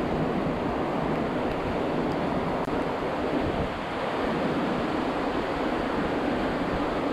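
Steady rush of a hill stream's flowing water.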